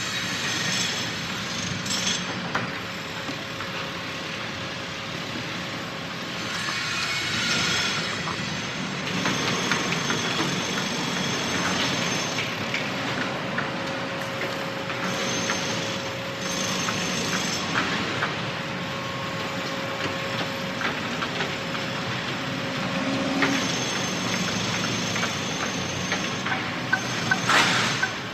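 Construction site ambience: heavy machinery running steadily with a constant whine, overlaid by scattered metal knocks and clanks, with a louder flurry of clanks near the end.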